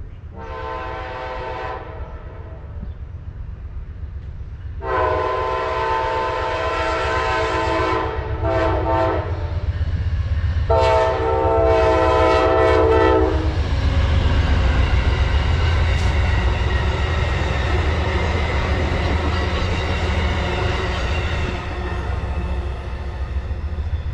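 Amtrak GE Genesis diesel locomotive sounding its horn as it approaches: a short blast, a long blast, two quick short blasts, then another long blast. The horn gives way to the steady low rumble and wheel-on-rail clatter of the passenger train going by.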